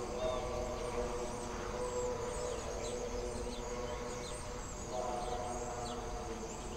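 Soundtrack music of held, swelling tones, louder near the start and again about five seconds in, with many short high chirps over it.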